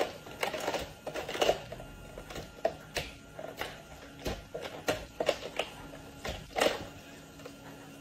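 Plastic toy dishes and cups clattering in a toy sink as a capuchin monkey handles them: irregular light knocks and clicks, dying down near the end.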